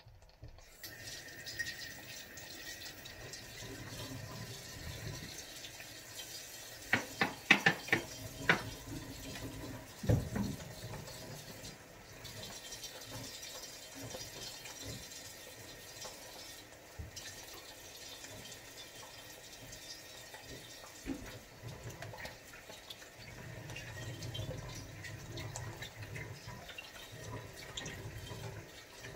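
Water running steadily from a kitchen tap into a sink. A quick run of sharp knocks comes about seven to eight and a half seconds in, and another near ten seconds.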